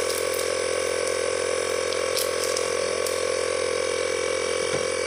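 A steady machine hum with several held tones, a motor or engine running at constant speed.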